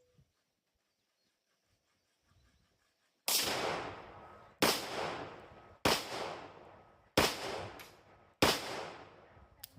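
Heritage Roscoe .38 Special five-shot snub-nose revolver firing five shots, about 1.3 seconds apart, each followed by an echo that dies away over about a second.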